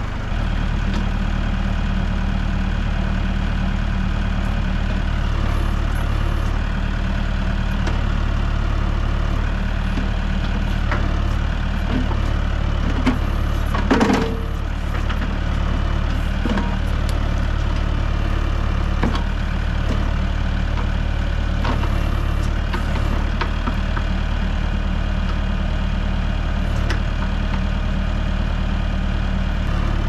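Mahindra compact tractor's diesel engine running steadily while the backhoe works, picking up a little at the very start. Scattered metallic clicks and knocks, with one louder clank about halfway through.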